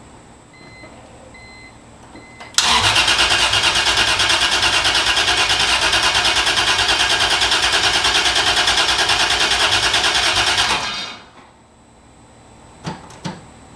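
Three short beeps, then a Toyota 2JZ-GTE inline-six cranking on its starter for about eight seconds with an even pulsing beat, not firing. It is being cranked to prime oil through a dry engine while the oil pressure still reads zero. Two sharp clicks follow near the end.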